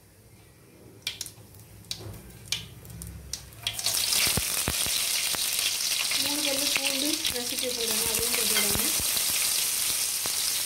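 Hot oil in an aluminium pan with mustard seeds: a few sharp pops as the seeds splutter, then about four seconds in a sudden loud, steady sizzle as curry leaves go into the oil.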